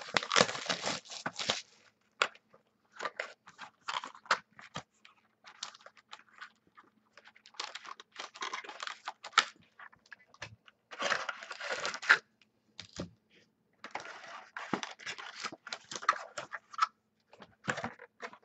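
Cellophane shrink-wrap being torn and crinkled off a 2014 Panini Prism football card box, and the cardboard box being opened and its insert lifted out. It comes in several bursts of crackling with short gaps, and light taps and clicks of cardboard between.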